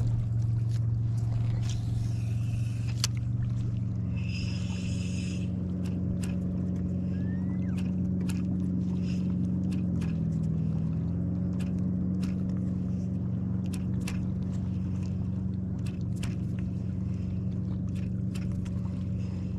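Boat motor running steadily with an even hum that dips briefly in pitch about halfway through, with scattered light clicks and scrapes of gear handling on the boat.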